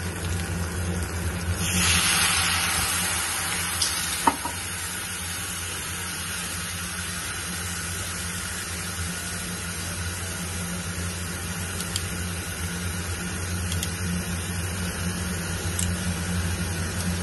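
Steak sizzling in a stainless-steel frying pan on a gas hob. About two seconds in there is a loud burst of hiss as red wine goes into the hot pan, then the wine sizzles and bubbles steadily around the meat over a low hum, with a single sharp click about four seconds in.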